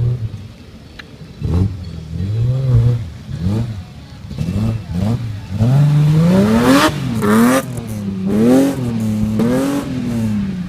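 Nissan Patrol off-road truck with a swapped-in BMW M3 engine, revving in repeated short bursts that rise and fall in pitch. The highest, loudest revs come about seven seconds in.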